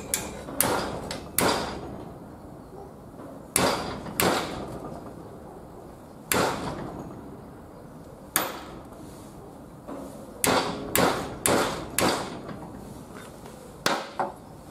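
Steel hammer striking the steel shaft of an old screwdriver clamped upright in a bench vise: about a dozen sharp metallic blows at an uneven pace, each ringing briefly, with a quick run of four or five near the end.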